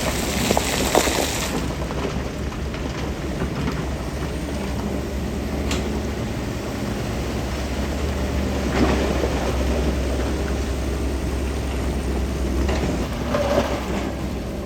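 Heavy earthmoving machinery's diesel engine running steadily, with occasional clatter and scraping, the loudest about a second in and again near the end.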